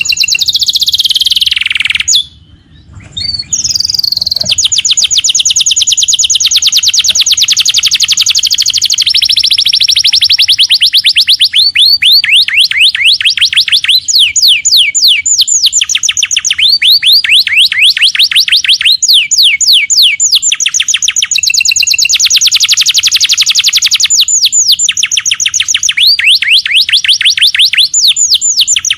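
Canary singing long rapid trills of fast-repeated downward-sweeping notes, run after run, with a short break about two seconds in.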